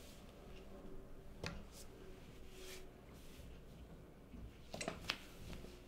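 Quiet room tone with a few faint clicks and small handling noises at a table, ending in a short cluster of sharper clicks and knocks.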